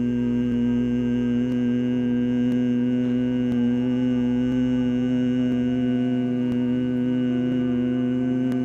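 A man humming one long, low, steady note on the exhalation of bhramari (humming-bee breath) pranayama, with the pitch held unchanged.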